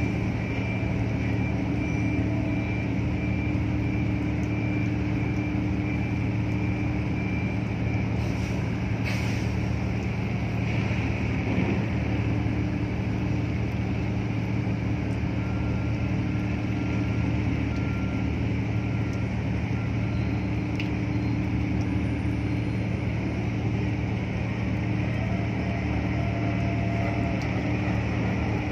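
Steady drone of marine diesel machinery: a low hum at a constant pitch that neither rises nor falls, with a faint click about nine seconds in.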